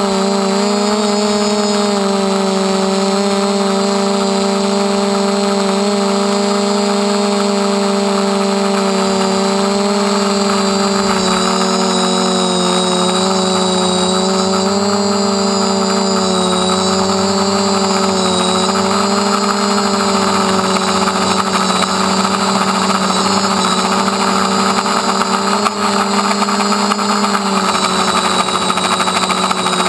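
A DJI F450 quadcopter's four brushless motors and propellers whining steadily in flight, heard close up from a camera mounted on the frame. The pitch wavers slightly up and down as the motors change speed.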